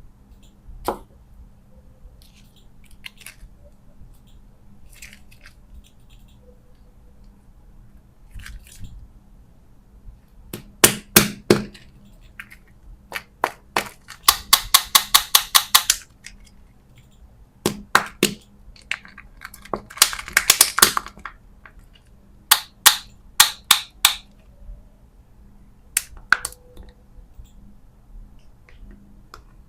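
Hard plastic candy packaging and hard candy being handled and snapped open: scattered light clicks, loud sharp cracks, and two runs of rapid crackling clicks about halfway through.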